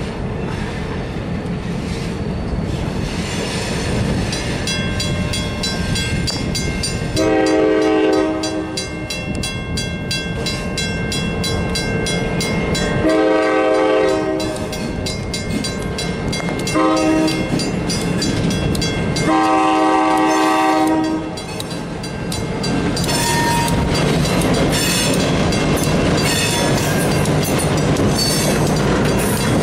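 Diesel locomotive horn blowing the grade-crossing signal (two long blasts, one short and one long) over a crossing bell ringing at the flashing road signals. Then the EMD GP38-2 and SW1500 diesel locomotives pass close by, engines rumbling and wheels clacking over the rail joints.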